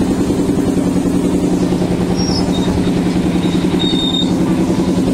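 Small park ride train running, its motor giving a loud, steady drone with a fast, even pulsing. Two brief, faint high squeaks come through, about two and four seconds in.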